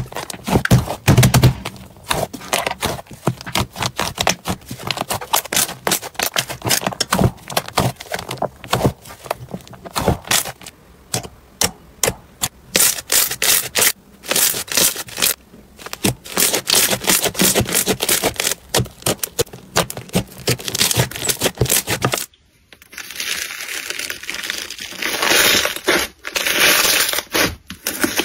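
Hands squishing and pressing slime, giving a dense run of sticky clicks, pops and crackles. About three quarters of the way through it cuts to a finer, denser crackle as a bubbly orange slime is pressed.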